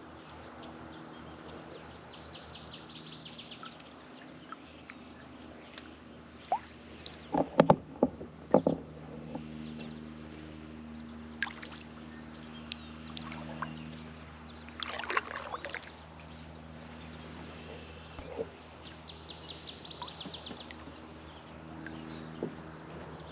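Kayak on calm water: paddle splashes and a quick run of hard knocks on the plastic hull about a third of the way in, with a lighter clatter later. A rapid high trill sounds twice over a steady low hum.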